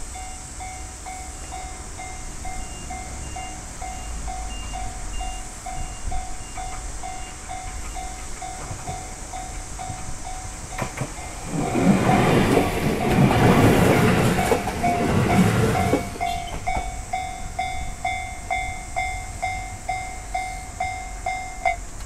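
Railway level-crossing bell ringing in a steady repeating clang about twice a second. A JR electric train passes close by from about 11 to 16 seconds in, and its wheel and running noise is the loudest part. The bell keeps ringing after the train has gone and stops near the end.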